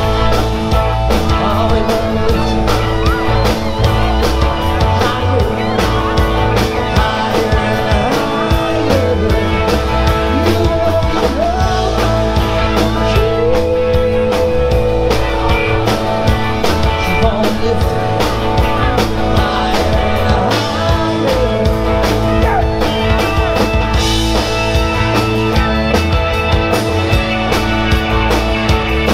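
Live rock band playing loudly through a PA: a drum kit keeps a steady beat under guitars.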